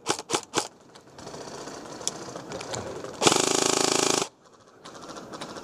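Custom M4 airsoft electric gun (AEG) firing: a few quick single shots at about three or four a second, then, about three seconds in, a loud full-auto burst lasting about a second.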